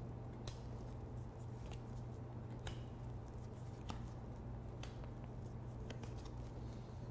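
Oracle cards drawn one at a time from a deck and laid on a cloth-covered table: about six soft card snaps and taps, spaced a second or so apart, over a steady low hum.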